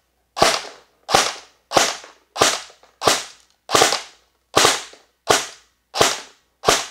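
G&G GR14 electric airsoft rifle firing 0.2 g BBs in semi-auto, one shot at a time. About ten sharp, evenly spaced shots come roughly one and a half a second.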